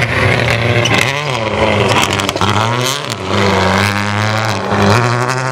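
Rally car engines revving hard. The pitch climbs and drops back several times, then holds fairly steady over the last couple of seconds.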